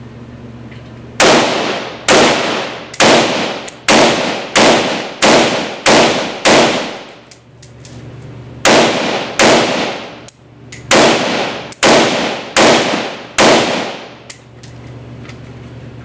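MSAR STG-556 semi-automatic bullpup rifle in 5.56 mm firing rapid fire: about fifteen shots roughly 0.7 s apart, with a pause of about two seconds halfway, each echoing off the walls of an indoor range. The rifle runs through the string without a jam.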